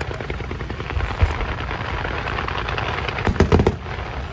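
Aerial fireworks going off in a fast, continuous crackle of pops, with heavier booms about a second in and again past three seconds.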